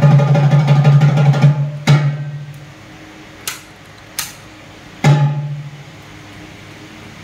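Intro music with drums over a held low note. It breaks off about two seconds in, leaving a few separate sharp percussion hits, the last one followed by a low note that fades away.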